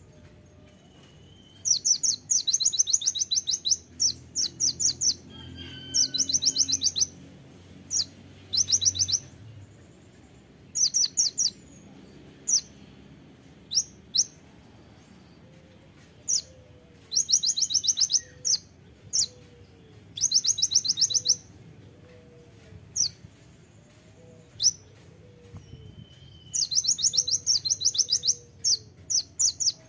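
Van Hasselt's sunbird (kolibri ninja) singing in full voice: repeated bursts of rapid, sharp, very high notes, each burst about a second long, with short gaps and a few single chirps between. This is the fast 'tembakan' (rapid-fire) song that keepers call gacor. Fainter, lower gliding calls sound in the background during the second half.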